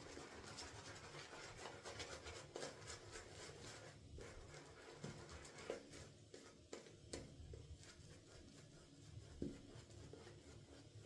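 Shaving brush with a mixed knot scrubbing soap lather on a face: faint, dense bristle scrubbing for about four seconds, then softer strokes with a few wet clicks of lather.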